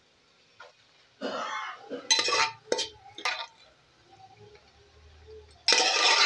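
Steel slotted spoon scraping and clinking against a steel kadhai in about five short strokes, the last one the loudest, as boiled black urad dal is pushed into thick tomato masala.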